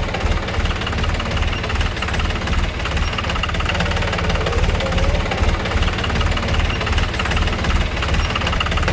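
Tractor engine running steadily at idle, with a fast low chugging beat.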